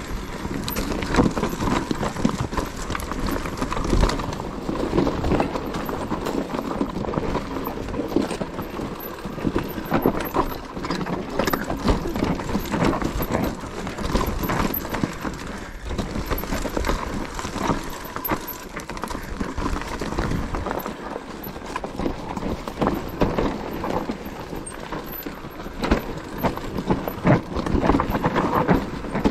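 Mountain bike rattling down a rocky trail: dense, irregular knocks and clatter from the tyres and frame over stones.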